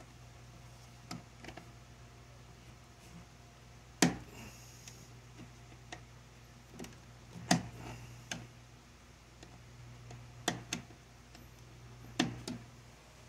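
Scattered sharp clicks and taps as copper wire is twisted by hand and knocks against a wooden bowl, over a steady low hum. The loudest clicks come about four seconds in, halfway through and near the end.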